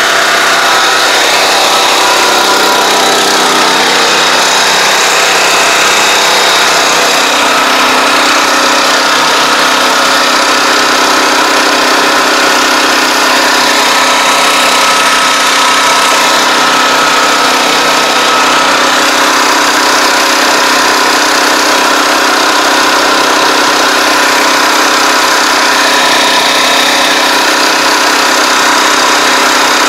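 Engine of a riding crop-spraying machine running steadily and loudly, heard close up while the machine works along the crop rows.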